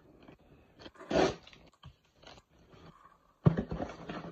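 A cardboard shipping box being opened by hand: irregular tearing, crunching and scraping of packaging. The loudest burst comes about a second in, and a quick run of louder handling strokes starts at about three and a half seconds.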